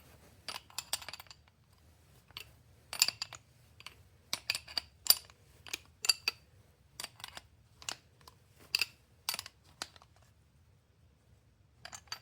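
Wrench clinking against the MAC AH650 air hammer's air inlet valve as the valve is twisted back into the body: a series of short, ringing metal-on-metal clicks in irregular clusters, stopping near the end.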